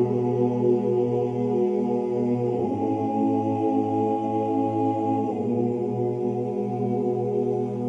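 Slow vocal chant laid over as background music: long held notes in several voices, the chord changing about every two and a half seconds.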